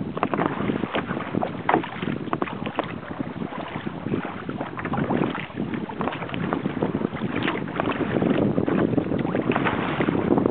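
Choppy water splashing and slapping irregularly against the hull of a sailing kayak under way, over a steady rush of wind buffeting the microphone.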